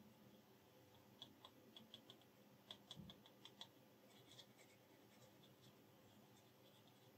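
Faint, scattered small clicks and ticks of a small metal sleeve and a plastic glue bottle being handled in the fingers, in an otherwise near-silent room, with one soft low bump about three seconds in.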